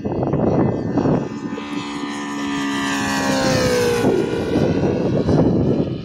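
Saito FA-60R3 three-cylinder four-stroke radial glow engine on a radio-controlled Seagull Bearcat model plane flying past. Its note comes in about a second in, falls in pitch as the plane passes, and gives way about four seconds in to a rough, noisy rumble like that heard before it.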